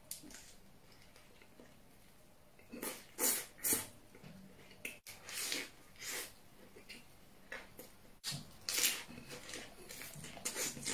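A person chewing a crisp lettuce-leaf wrap close to the microphone: the leaf crunching with each bite in short bursts, loudest around three seconds in and again near nine seconds.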